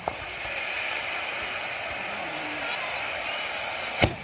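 Tezutsu hanabi (hand-held bamboo-tube firework) spraying sparks with a steady hiss, then a single sharp bang about four seconds in.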